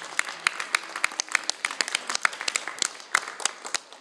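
A small group of people applauding, with many separate hand claps.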